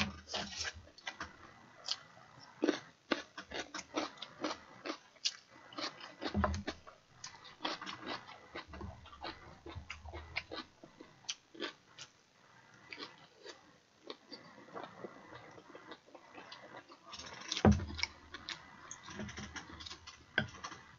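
Close-up eating sounds: a person chewing rice and sausage, with many small clicks and taps of a spoon and chopsticks against bowls and plates, and one louder knock about three-quarters of the way through.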